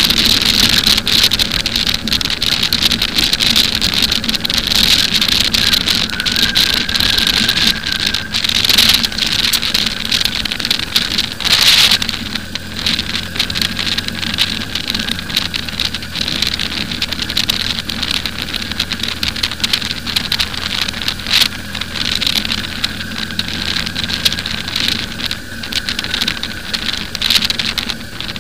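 Motorcycle on the move, its steady engine note low under a loud hiss and crackle of wind rushing over the microphone.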